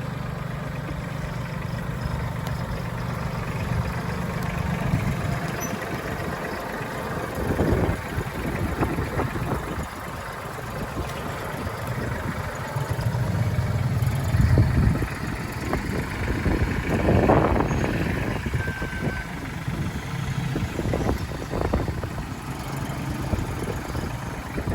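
Small vehicle engine running: a steady idle at first, then uneven as the engine speeds up and slows down several times.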